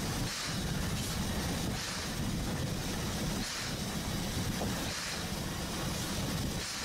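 Ōigawa Railway train running along the line: a steady rumble with a hiss above it, dipping briefly about every second and a half.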